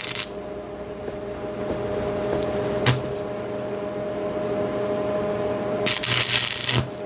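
Welding arc crackling and hissing as weld is laid to fill in a joint. It is louder and harsher briefly at the start and again about six seconds in, with a sharp click about three seconds in, over a steady electrical hum.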